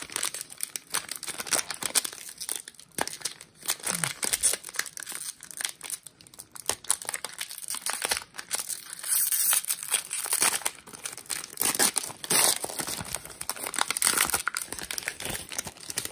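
Foil trading-card pack wrappers being torn open and crumpled by hand: a dense run of sharp crinkles and rips.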